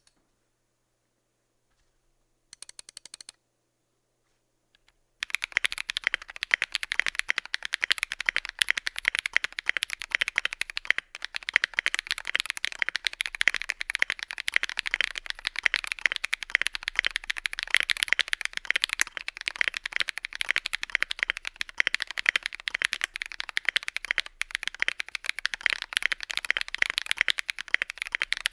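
Fast typing on a Tofu65 mechanical keyboard with lubed Holy Panda tactile switches: a dense, steady clatter of keystrokes. It starts about five seconds in, after a brief burst of clicks.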